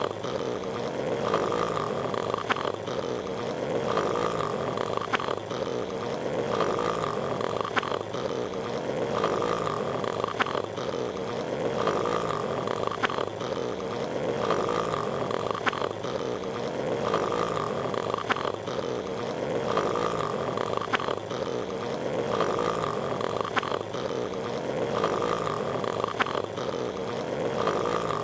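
Cartoon snoring of Patrick Star, a looped snore cycle repeating in a regular rhythm about once every two and a half seconds over a steady hiss.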